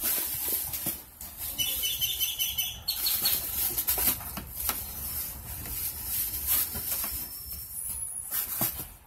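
Tissue paper and a paper gift bag rustling and crinkling as a hand digs through them, with many quick crackles.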